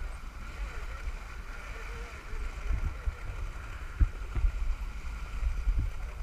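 Fishing boat running on open sea: a steady engine drone with water rushing past the hull and wind rumbling on the microphone, broken by several dull low thumps in the second half.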